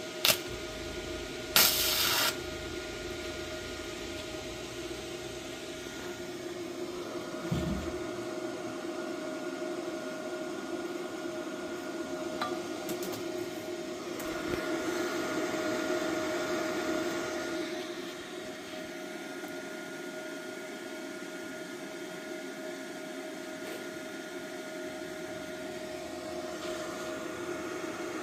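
Bestarc MIG145 welder running gasless flux-core wire on a test weld: two short sharp bursts as the arc strikes near the start, then a steady hum that swells for a few seconds past the middle.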